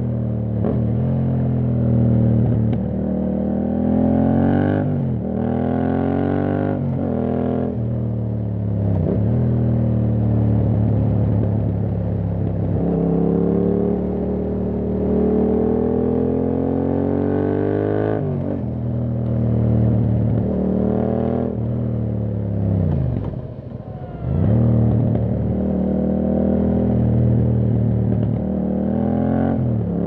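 2021 Yamaha MT-07's 689 cc parallel-twin engine through an Akrapovic full carbon exhaust, accelerating hard up through the gears: the pitch climbs and drops back at each upshift, several quick shifts in the first eight seconds, then one long pull midway. About three quarters of the way in it slows with a falling pitch, then pulls away again and runs on steadily.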